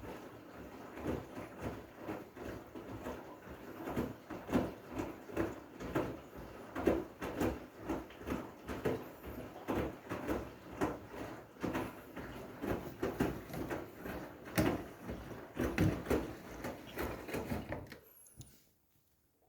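Washing machine drum turning a load of wet blankets, a run of soft thuds about twice a second over a wash of water, cutting off near the end.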